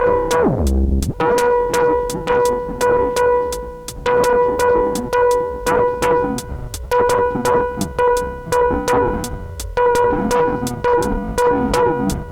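Electronic music from hardware analog synthesizers and a Roland TR-6S drum machine: sharp drum-machine clicks tick about four times a second over a held synth tone. About half a second in, the tone drops away in a steep falling sweep that ends in a low thump, and the held tone comes back.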